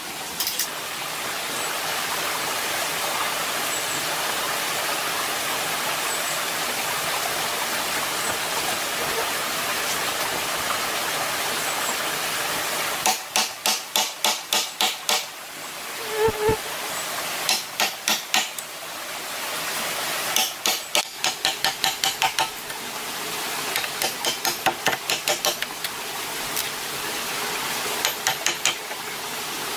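Knife blade chopping and carving into a green bamboo tube: short runs of quick, sharp strokes, about five a second, starting about halfway through and coming in several bursts. A steady rushing noise fills the first half and continues underneath.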